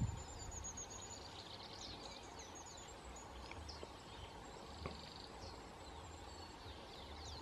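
Faint birdsong: scattered short high chirps and a brief rapid trill from small wild birds, with a thin steady high note running through, over a low steady background noise.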